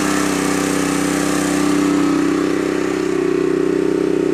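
Honda EM400 portable generator's small engine running steadily at raised speed, its DC charging load just unplugged; the pitch shifts slightly about three seconds in.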